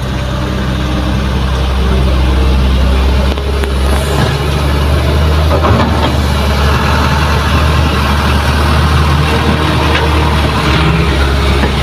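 Diesel engines running steadily with a low, even hum: a Kobelco excavator and a small dump truck that pulls away loaded with fill soil. The sound grows a little louder over the first few seconds.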